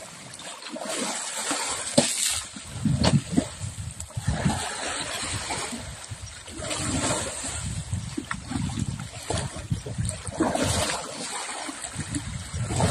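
Asian elephant splashing and wallowing in a shallow muddy river: irregular sloshing and splashing of water, with a few sharper slaps.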